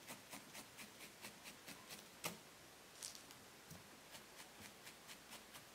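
Felting needle in a pen-style holder stabbing repeatedly into wool: faint, even clicks about three a second, one a little louder about two seconds in.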